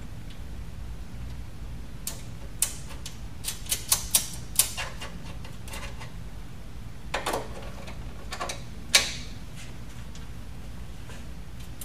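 Scattered sharp metallic clicks and knocks as nuts are run onto mounting bolts to fasten a steel adapter chassis to a control-cabinet panel. They come in a cluster from about two to five seconds in and again around seven to nine seconds, the loudest knock near nine seconds, over a steady low hum.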